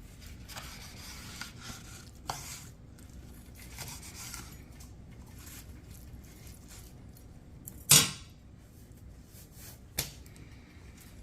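Knife slicing through a seared tomahawk steak on a cutting board: soft cutting and scraping strokes, with a sharp knock about eight seconds in and a lighter one about two seconds later.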